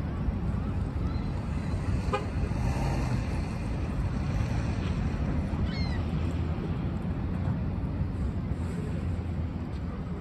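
Parking-lot ambience: a steady low rumble of traffic and wind, with a single short car horn toot about two seconds in and a brief high chirp near six seconds.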